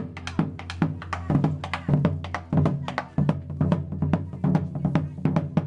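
Background music with a fast, steady drum and percussion beat over a sustained bass note.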